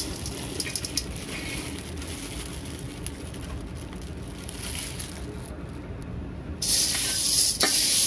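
Dried green peas sliding and rattling out of a plastic bag into an aluminium pot, with the thin bag rustling as it is handled. Near the end comes a louder rushing, rattling hiss.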